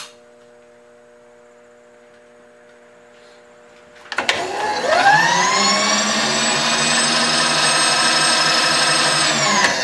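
An electric motor starts about four seconds in, spins up to a steady whine, and drops slightly in pitch near the end.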